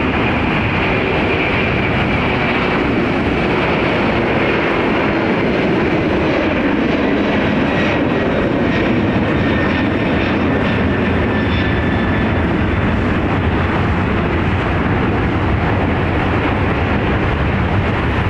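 Boeing 747-400F freighter's four turbofan engines running at takeoff thrust as it departs: a loud, steady jet noise with a high whine that slides slowly down in pitch over the first half.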